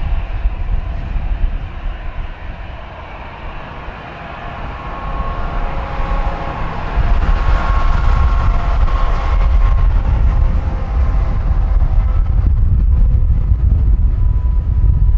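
Airbus A380 jet engines on approach: a whine of several steady tones over a low rumble, growing louder about seven seconds in as the aircraft draws nearer. Strong wind buffets the microphone.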